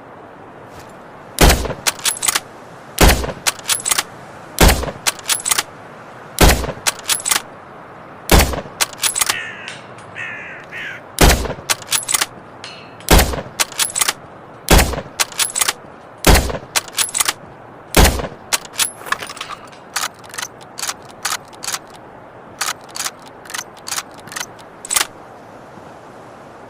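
Suppressed Lee-Enfield bolt-action rifle firing about ten muffled shots, one every couple of seconds, each followed by a few sharp metallic clicks as the bolt is worked. Near the end a quicker run of lighter clicks with no shots.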